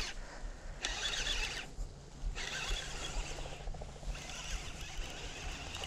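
Shimano Chronarch baitcasting reel cranked in about four quick spurts, each a second or so of high whirring from its gears, as a small hooked largemouth bass is reeled in.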